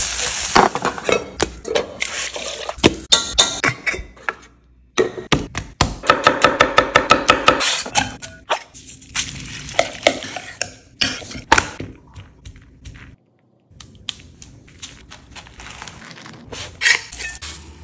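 A run of kitchen sounds. First crumbles sizzle and are stirred in a frying pan, then come sharp clicks and knocks including a quick run of about four or five a second. Chopped vegetables are tossed in a stainless steel bowl, and near the end a tortilla is folded by hand.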